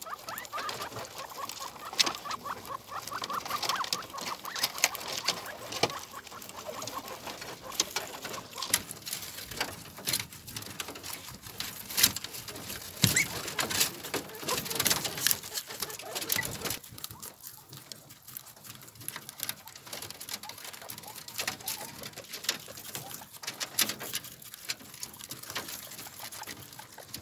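Guinea pigs gnawing and crunching whole apples: irregular quick clicks and crunches, with small feet scrabbling on the wire-mesh floor. During the first eight seconds or so, guinea pig calls wavering in pitch sound over the chewing.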